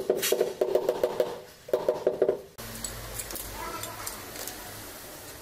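Rubber mallet tapping a large ceramic floor tile to bed it into the tile adhesive: quick, ringing taps, about six a second, about eight in a row, a short pause, then four more. Halfway through the tapping stops and only a low hum with faint handling clicks remains.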